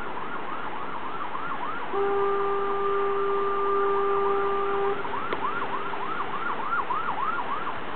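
Emergency vehicle siren on a fast up-and-down yelp, about three sweeps a second. A steady horn blares over it for about three seconds, starting about two seconds in.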